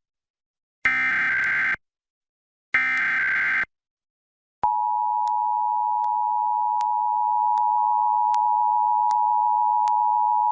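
Emergency Alert System SAME header data: two harsh digital screeching bursts of about a second each, a second apart, followed by a pause. About four and a half seconds in, the EAS two-tone attention signal starts, a steady dual tone held without change. It is the opening of a required monthly test alert.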